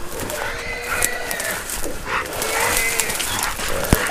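Hunting hounds baying: two long, drawn-out bays about a second apart, over rustling brush, with a sharp knock near the end.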